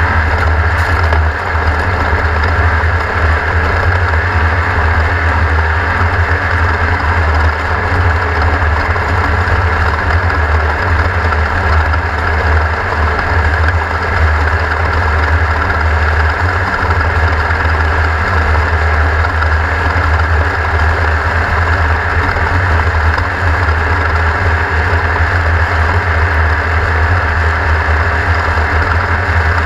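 Class 1600 off-road race car's air-cooled VW engine running steadily, heard from onboard, with a deep, even drone and a dense rush of mechanical and road noise. It is loud throughout with no clear revving changes.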